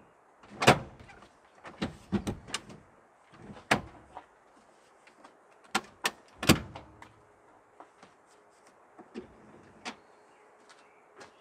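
Knocks, clunks and clicks of gear and fittings being handled inside a van's cabin. The two loudest come about half a second in and about six and a half seconds in, with lighter taps scattered between.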